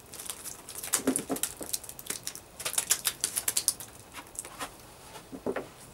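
A bag being crumpled and handled: a quick, irregular crackling and rustling with a few soft knocks.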